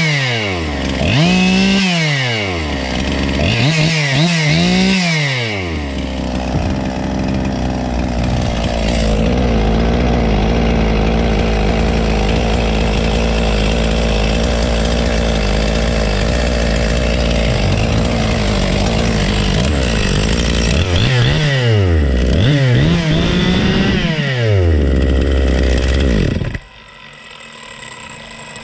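Husqvarna 257 two-stroke chainsaw running: blipped to high revs and back down about four times, idling steadily for a long stretch, then revved two or three more times before it cuts off suddenly near the end.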